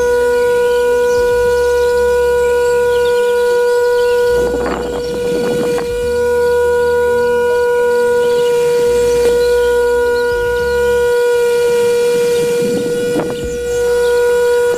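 Small electric motor of a toy winnowing fan running with a steady, pitched whine. A rustling hiss comes twice, around five seconds in and near the end, as wheat and chaff are poured into the fan's air stream.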